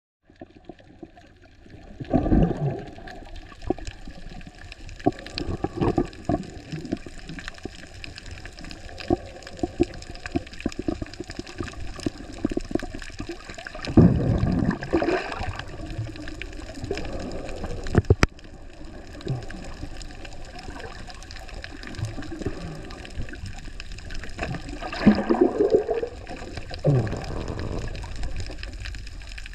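Underwater sound picked up by a camera in its housing: water gurgling and bubbling around it, with irregular louder surges about 2 seconds in, around the middle and near the end, and faint scattered clicks throughout.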